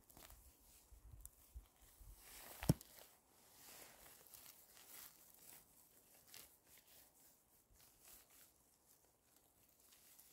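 Faint rustling of forest leaf litter and footsteps, with scattered small clicks and one sharp click about two and a half seconds in.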